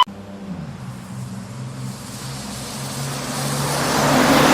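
Vehicle engine sound: a low steady hum under a rushing noise that grows louder over the last second or so.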